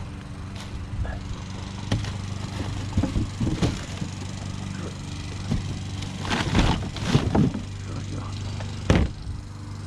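Knocks and clattering of scrap being handled: a few separate knocks, a busier stretch of clatter in the middle and one sharp knock near the end, over the steady hum of an idling vehicle engine.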